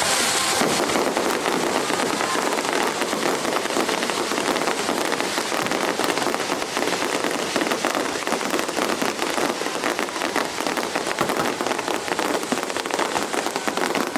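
Fireworks crackling: a dense, steady hail of tiny rapid pops, like heavy rain.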